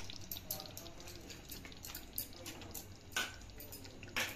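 Faint, scattered small pops and drip-like ticks, as from the korma gravy bubbling gently in the pot, with two slightly louder pops about three seconds in and near the end.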